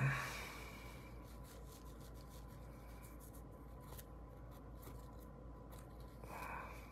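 Faint rubbing of a cloth being wiped over a folding knife's blade, with a few light ticks partway through.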